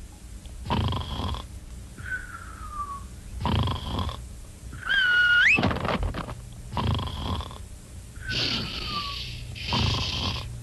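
Cartoon snoring: a rasping snore alternating with a falling whistle, repeated about every three seconds, with one whistle that swoops upward midway.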